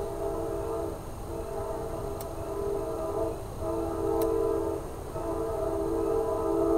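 Distant train horn sounding a multi-tone chord in blasts: long, long, short, then a long one still going at the end, the pattern of a grade-crossing warning. Two faint clicks sound about two and four seconds in.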